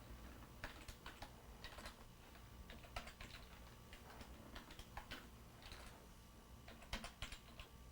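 Faint computer keyboard typing: irregular, scattered keystrokes, with a few louder ones about seven seconds in.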